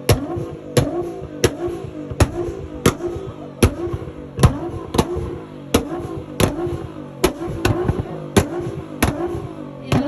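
A tuned car's engine being revved over and over, each rise and fall in engine pitch punctuated by a sharp exhaust bang, about one to two a second. The bangs come faster near the end.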